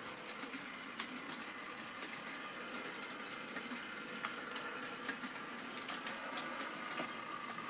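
Model railway goods train running: a steady rolling rumble of small wagon wheels on the track, dotted with frequent little clicks, over a faint steady whine.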